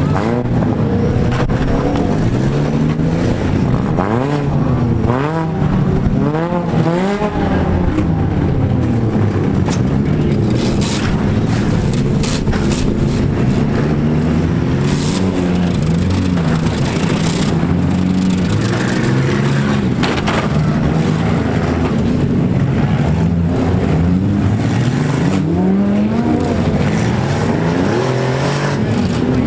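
Several compact derby cars' engines revving up and down together, with a number of hard hits from the cars colliding, thickest in the middle.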